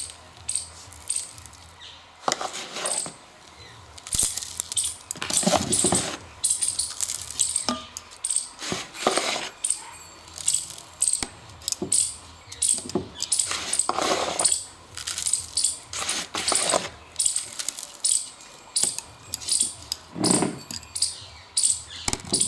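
Handfuls of sandy soil mix scooped from a plastic tub, poured and rubbed into a terracotta pot, in a series of gritty swishes. Metal and glass bangles on the wrists clink with each movement.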